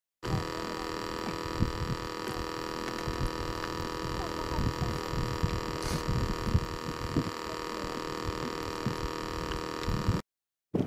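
Steady electric hum with several fixed pitches, as from a small battery air pump aerating a fish bucket, with irregular low thumps underneath.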